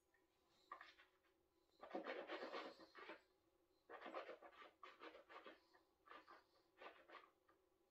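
Faint mouth and breath sounds from a whisky taster just after a sip: the spirit worked around the mouth and breaths let out, in four or five short bursts.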